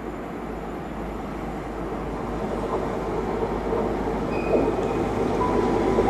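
Class 43 diesel power car of the New Measurement Train running in along a station platform, its engine and wheel noise growing steadily louder as it draws near, with brief faint squeals near the end.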